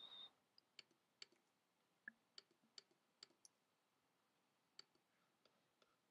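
Faint computer mouse clicks, a dozen or so single clicks spaced irregularly over near-silent room tone.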